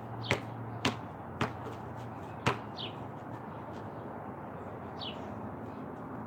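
A basketball bouncing on a concrete slab, four bounces about half a second apart that stop about two and a half seconds in. Short falling bird chirps are heard twice.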